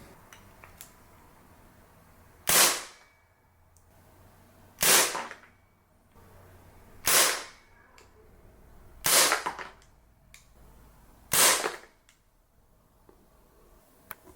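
Carbon8 Steyr L9-A2 CO2 airsoft pistol firing five single shots about two seconds apart, each a sharp pop with a short hiss of gas after it. Faint clicks near the start and end.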